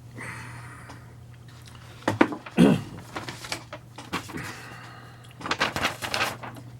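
Scattered knocks and clicks, like something being handled or a door or cupboard moved, over a steady low hum. The loudest knock comes about two and a half seconds in, with a short sound that falls in pitch, and a quick cluster of clicks follows near the end.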